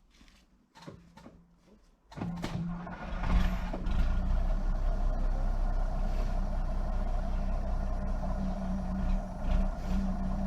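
A Volvo TL22 army truck's diesel engine starting up about two seconds in after a few faint knocks, then running steadily. This is the engine firing after standing unused for about twenty years.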